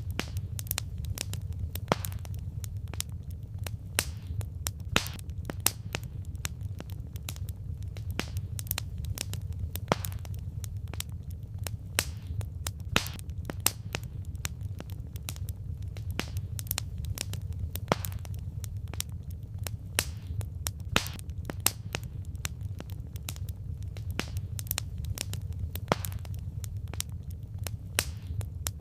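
Wood fire crackling: irregular sharp pops and snaps of burning logs over a steady low rumble of the flames.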